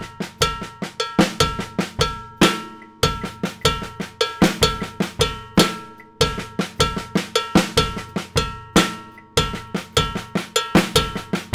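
Drum kit groove played slowly: cowbell strokes from the right hand, snare notes from the left hand woven in as an inverted paradiddle (left, left, right, left), and bass drum beats. The pattern repeats about every three seconds.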